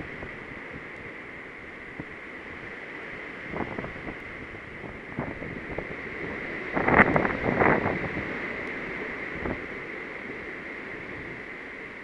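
Hurricane wind and rain: a steady rushing hiss that swells in gusts, the strongest about seven seconds in. A faint steady high tone runs underneath.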